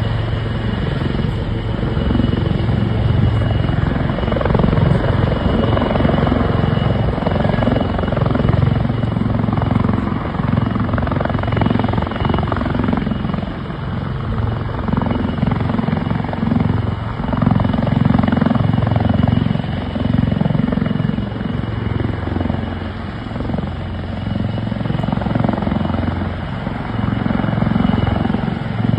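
Helicopter hovering low: steady rotor and engine noise with a thin high whine, swelling and easing a little in loudness.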